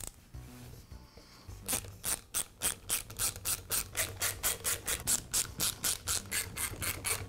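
Socket ratchet clicking steadily, about five clicks a second, as it backs out the cap screws of a finish nailer. The clicking starts about a second and a half in.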